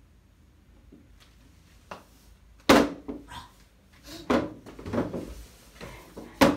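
A small plastic chair being knocked and shuffled about on a hardwood floor: two sharp knocks, one about a third of the way in and one near the end, with lighter scraping and bumping between.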